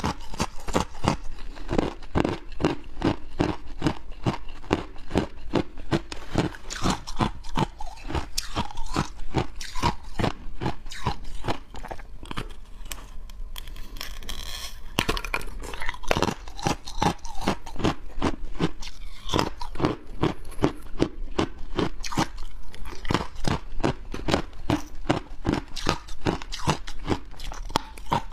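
A person biting and chewing hard ice close to the microphone: sharp, crackly crunches, about two a second, with a short lull about halfway through.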